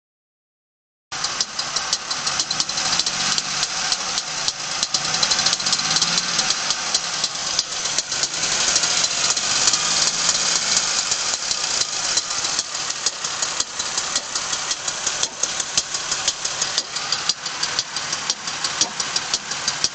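GM 3.4-litre V6 engine running, starting about a second in, with a rapid, steady knock through the running. The knock is taken for rod knock in a factory-remanufactured engine.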